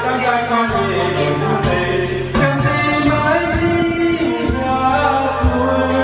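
Karaoke: a man singing into a microphone over a pop backing track with a steady beat and sustained bass notes.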